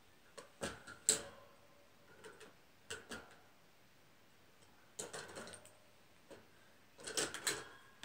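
Wire-and-plastic bird cage parts clicking and rattling as they are handled and fitted together: scattered light taps, the sharpest click about a second in, and a busier run of clicks near the end.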